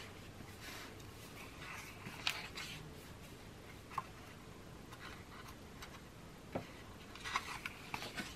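Paper sticker-book sheets being handled: a few faint light taps, then a cluster of paper rustling as a sheet is lifted and turned near the end.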